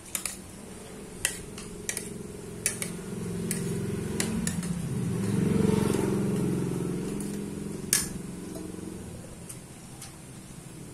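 A metal spoon clinking and scraping against a plate of fried rice, with a sharp clink every second or so and one louder one near the end. Under it runs a steady low hum that swells about halfway through and then fades.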